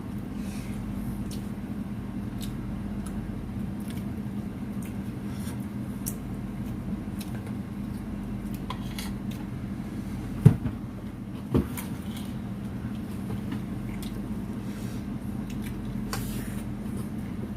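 Quiet eating sounds: small clicks and clatter of cutlery and plates over a steady low hum, with two louder knocks about ten and eleven seconds in.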